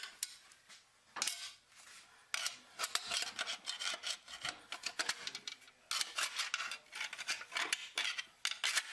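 Tapered steel snap ring being worked into its groove inside a 6R80 automatic transmission case, seating the center support: irregular runs of metallic clicks and scrapes with short pauses between them.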